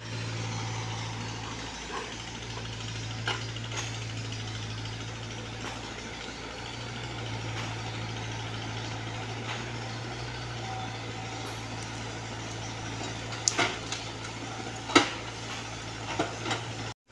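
Komatsu PC75UU mini excavator's diesel engine runs at a steady hum while the machine digs into an earth bank. Sharp knocks and clanks from the bucket and arm stand out, one about three seconds in and a quick cluster near the end, the loudest about fifteen seconds in.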